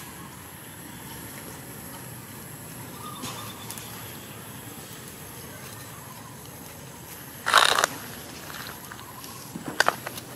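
Long-tailed macaques squabbling: a short harsh call, the loudest sound, about two-thirds of the way through, then a couple of brief sharp sounds near the end, over a faint steady high whine.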